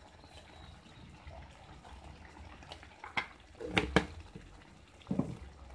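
Chicken curry simmering in an aluminium pan on a gas burner, bubbling softly. A few sharp clicks come about three to four seconds in, and another short one near the end.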